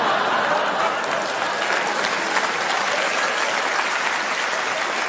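Theatre audience applauding, a steady wash of clapping.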